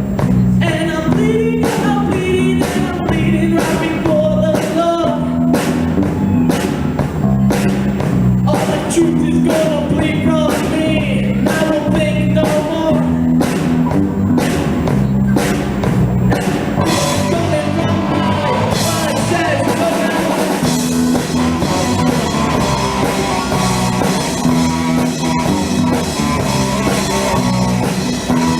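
Live rock band of electric guitar, bass guitar and drum kit, with a male lead singer. Past the middle the singing stops and the guitar takes over for an instrumental passage.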